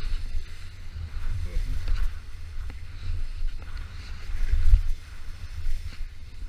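Wind buffeting a helmet or body-mounted action camera's microphone as a snowboarder rides fast through powder, a gusty low rumble that swells about four and a half seconds in. Under it, the faint hiss of the snowboard sliding and turning through the snow.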